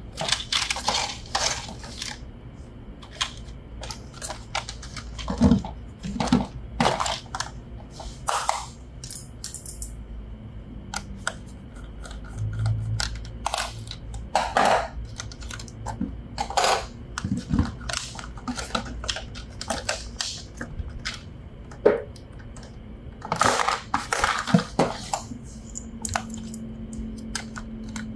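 Toys and their packaging being handled: irregular clicks, taps and rustles of small hard parts knocking together.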